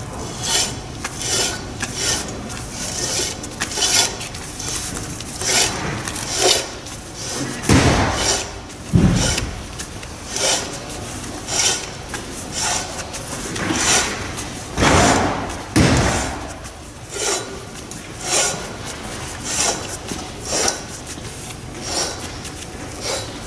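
Metal centralizer cage being twisted back and forth onto a drill-pipe camera running tool: repeated metal-on-metal scraping rasps, about one or two a second, with a few heavier knocks about a third and two-thirds of the way through.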